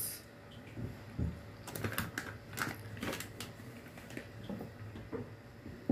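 Light, irregular clicks and taps of small objects being handled and set down.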